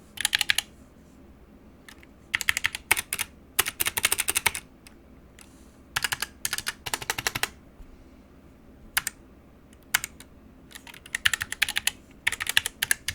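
Typing on a Geek GK61 optical keyboard with black Gateron linear switches: quick runs of keystrokes with the clack of keys bottoming out, in several bursts separated by short pauses, with single key presses around the middle.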